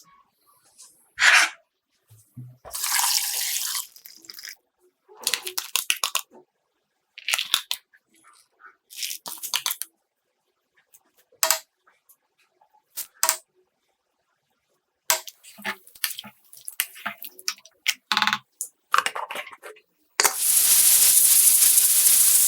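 Kitchen cooking sounds in short separate bursts, with clinks, rattles and pouring, as ingredients for a beef-feet stew go into a pot. Near the end comes a loud, steady, hissing sound that keeps going.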